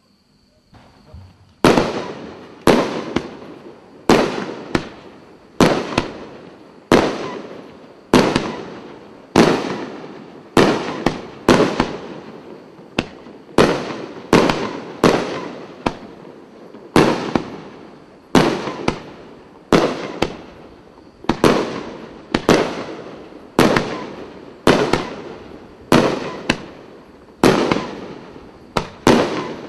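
A 36-shot 2-inch fireworks cake of brocade shells with rings firing in sequence: after a faint start, sharp bangs come about once a second or a little faster, each fading off before the next.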